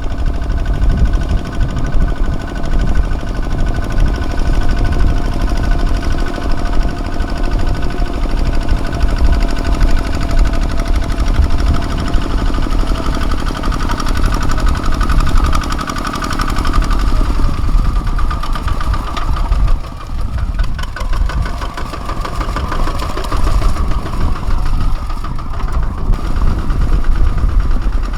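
Kubota ZT155 single-cylinder diesel engine of a small tractor running steadily while ploughing, loud and knocking. Its pitch dips slightly about two-thirds of the way through.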